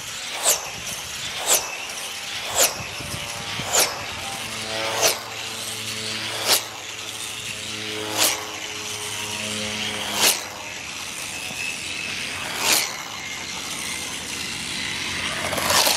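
Electric tether car with a brushless Neu motor whizzing past once a lap as it slows down. Each pass is a brief whoosh that drops in pitch. The passes come about once a second at first and slow to about one every three seconds.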